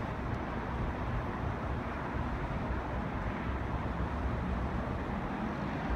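Steady low rumble and hiss of distant traffic, with no single event standing out.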